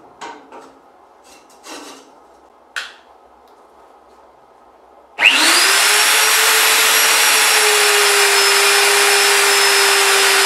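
A few light knocks and clicks as the workpiece and clamp are handled. About halfway through, a magnetic drill press's motor starts up, its whine rising quickly to speed, and then runs steadily while the bit drills into the steel bar.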